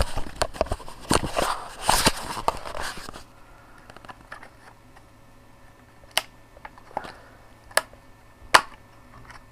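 Hands wrestling with the plastic packaging of a RAM stick: about three seconds of dense crinkling and clicking, then a handful of sharp, separate clicks and snaps spaced roughly a second apart.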